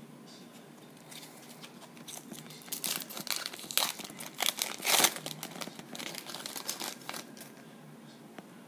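Foil wrapper of a baseball card pack being torn open and crinkled, in a run of crackly rustling that peaks about halfway through and fades near the end.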